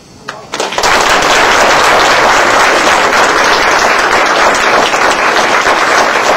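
Audience applauding, starting about half a second in and carrying on steadily.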